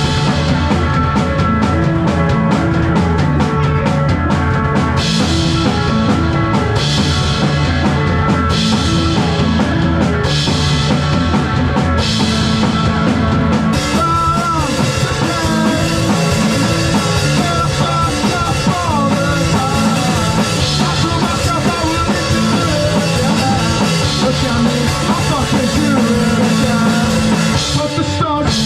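Live rock music played loud on a drum kit and other instruments, with a steady driving beat throughout.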